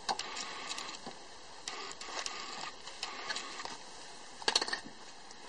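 Light scattered clicks and taps from hand-tool work at a car's rear wheel hub, with a quick cluster of sharper clicks about four and a half seconds in.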